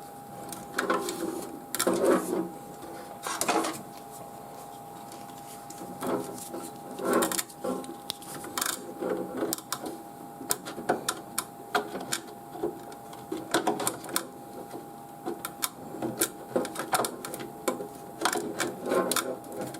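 Irregular plastic clicks, knocks and cable rustling as a 24-pin ATX power connector is handled and pushed into its motherboard socket, with a faint steady tone underneath.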